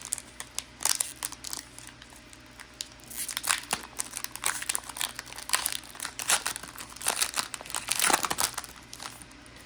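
Foil Pokémon booster pack wrapper crinkling in the hands, a run of quick, irregular rustles that grows busier about three seconds in and is loudest near the end.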